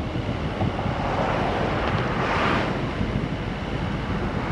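Wind buffeting an open-air microphone on a moving vehicle, over a steady rumble of road and engine noise, with a gust swelling about two and a half seconds in.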